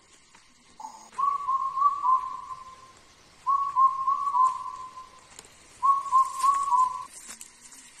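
A bird calling: three near-identical phrases of about four clear whistled notes each, repeated every two and a half seconds or so.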